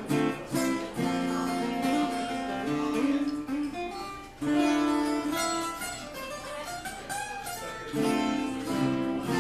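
Acoustic guitar played solo: chords strummed and notes left to ring out and fade.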